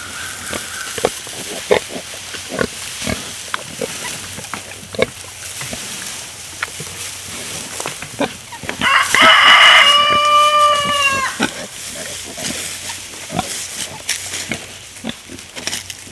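Dry straw rustling and crackling as it is carried and handled. About nine seconds in comes a loud pig squeal, harsh at first, then a drawn-out pitched note that falls away at the end.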